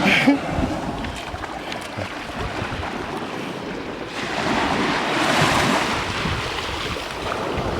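Surf washing on the shore with wind on the microphone; a wave swells up and washes in about four seconds in.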